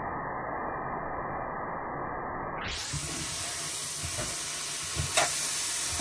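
A steady, muffled rushing noise, then an abrupt change about halfway to food sizzling in a hot pan, with a few knocks and a clink of a utensil against the pan near the end.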